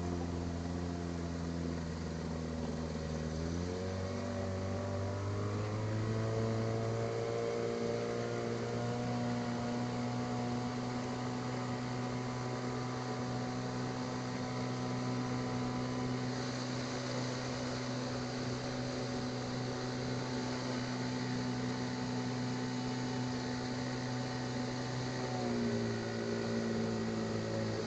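Small boat's outboard motor running. About four seconds in its pitch rises as it speeds up, then it holds steady and eases back down near the end.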